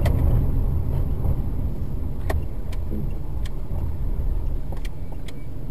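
A car's steady low road and engine rumble heard from inside the cabin while driving on a highway, with a few scattered light clicks in the second half.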